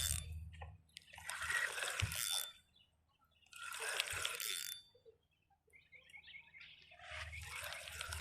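Water splashing in four short bursts, each about a second long: a hooked catfish thrashing at the surface of the pond.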